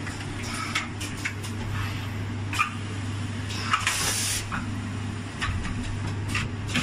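Edge sealing machine for phone boxes running: a steady hum with scattered clicks and clacks from its mechanism, and a short air hiss about four seconds in.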